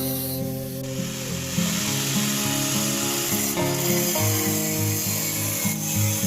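Steady rasping of a bracket piece being cut by hand, with no clear stroke rhythm, under background music with a melody.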